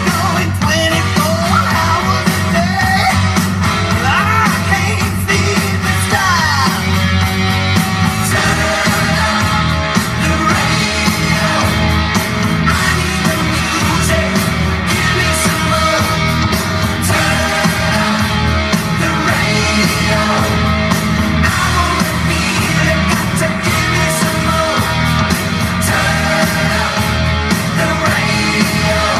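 Loud soundtrack music with a singing voice over a full band.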